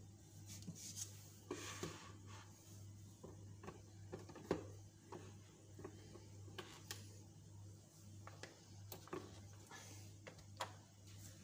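Faint scattered clicks, knocks and rubbing of a plastic blender lid being pressed onto its jug and the jug being set on the motor base, over a low steady hum.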